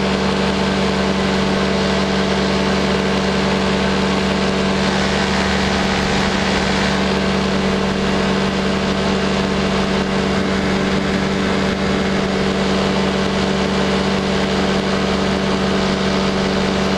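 Powered parachute's engine and propeller running steadily at cruise power in flight, a constant even drone that does not change in pitch.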